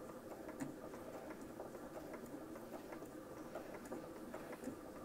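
Electric sewing machine running steadily, stitching through two layers of fabric at its slowest (turtle) speed setting with the foot pedal pressed all the way down.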